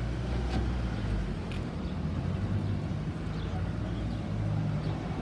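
A motor vehicle's engine running steadily at low revs, a low hum, with a few faint clicks over it.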